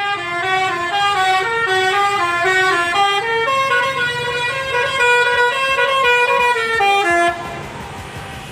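Telolet Basuri multi-tone bus horn playing a tune in quick stepping notes, several tones sounding together, which stops abruptly about seven seconds in.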